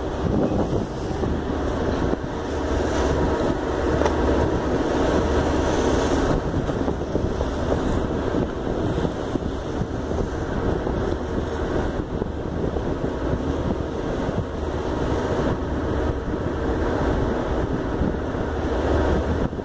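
Wind buffeting a phone's microphone on a ship's deck at sea, over the steady wash of water along the moving hull, with a low rumble underneath throughout.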